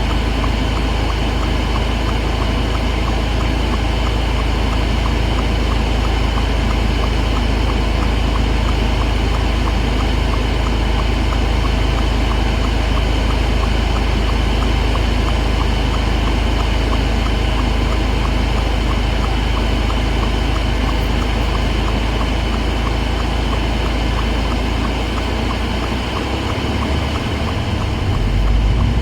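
Car driving on a wet freeway in rain: steady road rumble and tyre hiss on wet pavement, with water spray. The low rumble changes briefly near the end.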